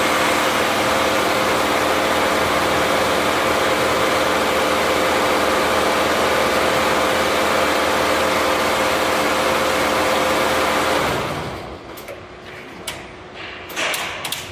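Richpeace 20-head flat embroidery machine running at 1200 RPM: a loud, dense, steady mechanical clatter of many needle heads stitching at once, over a steady hum. Near the end the running sound drops away to a much quieter level, with a few sharp clicks.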